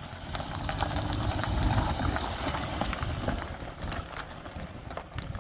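Silver Peugeot 405 sedan driving over a stony dirt track: a low engine and tyre rumble with stones crackling and popping under the tyres. It grows louder over the first couple of seconds, then fades a little.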